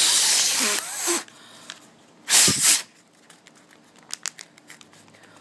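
A person blowing into the open hole of a folded origami paper balloon to inflate it: one long blow of about a second and a half, then a shorter double puff about two seconds later. A few faint ticks follow near the end.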